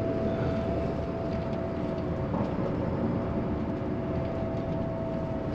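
Bus running along a road, heard from inside the passenger cabin: a steady engine and road rumble, with a high whine that drops back about two seconds in.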